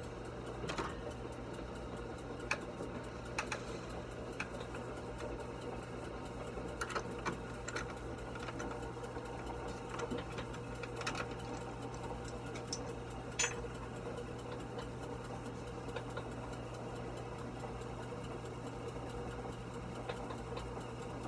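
Sewing machine motor humming steadily, with a few scattered light clicks.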